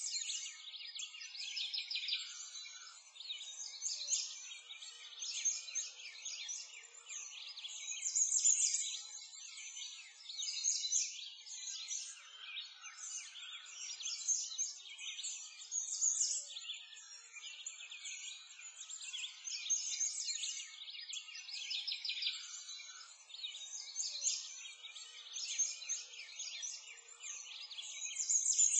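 A dense chorus of many birds chirping at once, high-pitched and continuous, swelling and dipping in loudness every couple of seconds.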